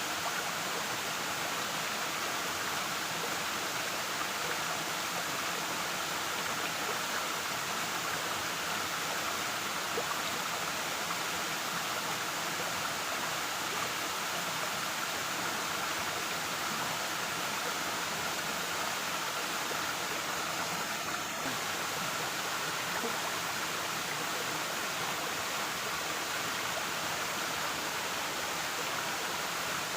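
Waterfall: the steady rushing of falling water.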